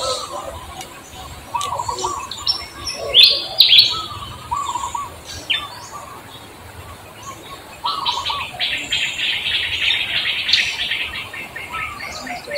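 Wild birds chirping, with short calls scattered throughout and a long run of quick chirps from about eight to eleven seconds in.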